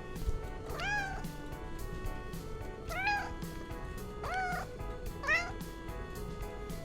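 A domestic cat meowing four times, each call rising and then falling in pitch, over background music.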